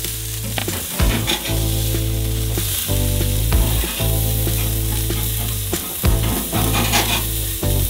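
Burger patties sizzling on a charcoal grill grate, with a metal spatula now and then scraping under them as they are turned, over background music.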